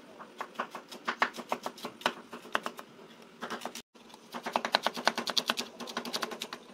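Cleaver chopping shallots on a wooden cutting board, the blade knocking on the board: scattered chops at first, then a fast, even run of many chops a second just past the middle.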